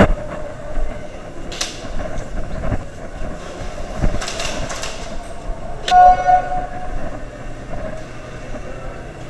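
Indoor airsoft game noise: scattered sharp clicks and knocks over a steady hum. About six seconds in, a loud horn-like tone sounds for about a second.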